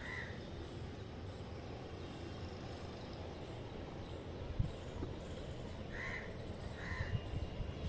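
Three short, harsh bird calls: one at the start and two more about six and seven seconds in, over a steady low hum. A single sharp knock about halfway through.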